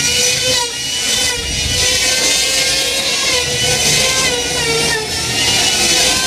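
Woodworking machinery running in a furniture workshop: a steady, slightly wavering machine whine over a loud hiss.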